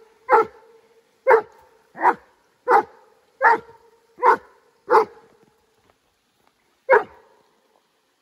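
A Dobermann barking: seven barks in a steady run, then one more bark after a short pause.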